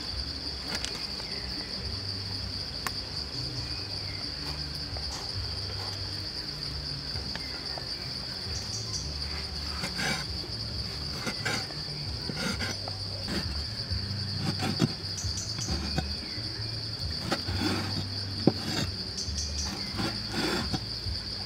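Insects droning steadily at a high pitch, with a cleaver knocking through cow stomach (honeycomb tripe) onto a wooden chopping board in short irregular chops, more of them in the second half.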